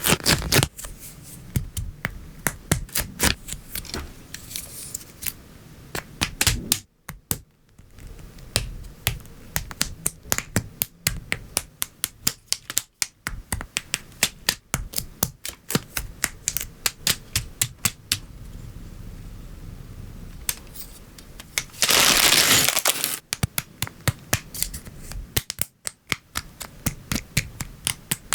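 LEGO Technic plastic pieces being clicked together by hand: a rapid run of sharp snaps and clicks as pins, beams and parts are pressed into place. About three-quarters of the way through comes a loud rattle lasting about a second.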